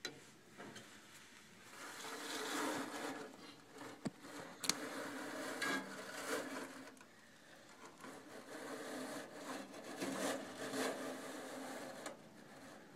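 Wire flue brush on a twisted-wire handle scraping and rubbing through soot inside a gas unit heater's heat exchanger, in several spells of scrubbing with a sharp click partway through.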